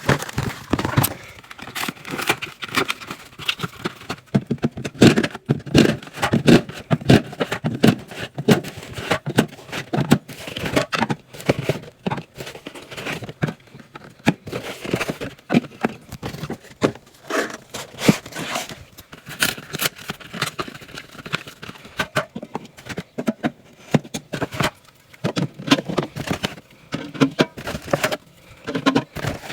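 Drinks being restocked into a fridge, sped up: a rapid, uneven run of knocks, clinks and scrapes as cans and bottles are handled and set down on the shelves.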